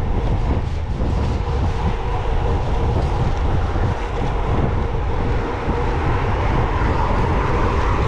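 Steady wind buffeting and road rumble on the microphone of a road bike moving at speed, with no pauses or sudden events.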